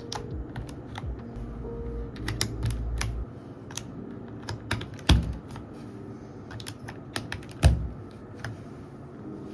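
Irregular sharp plastic clicks as switches and keycaps are pressed into a GMK104 full-size keyboard during its build. Two louder knocks come about five and seven and a half seconds in.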